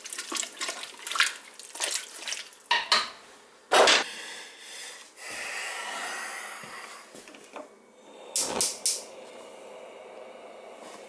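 Metal clatter and knocks of kitchen utensils against a large stainless steel stockpot of soup, with some liquid sloshing and dripping. The loudest knock comes about four seconds in and two more about eight and a half seconds in.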